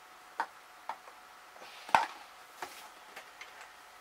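Clicks and knocks of a street light's top cover being handled and fitted back onto its die-cast aluminium body, with one sharp knock about two seconds in.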